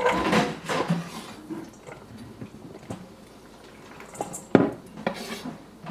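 Kitchen dishes and containers being set down and handled on a counter: a few scattered knocks and clatters, the sharpest about four and a half seconds in.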